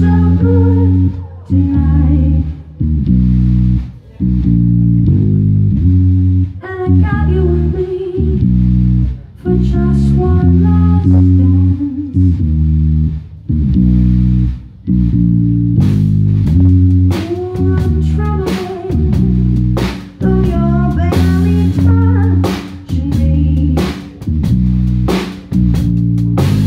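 Live song on a Stratocaster-style electric guitar: heavy rhythmic chords with a woman singing over them. Sharp percussive hits join in about sixteen seconds in.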